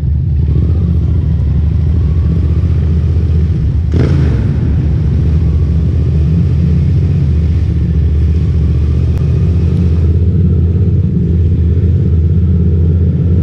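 Motorcycle on the move: a steady, loud low rumble of engine and wind on the microphone, with one sharp knock about four seconds in.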